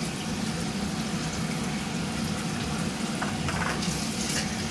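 A steady rushing noise over a low hum, with a few light clicks about three and four seconds in.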